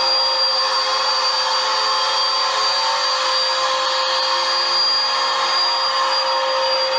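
Vacuum cleaner motor running steadily: an even rushing hiss with a constant high whine.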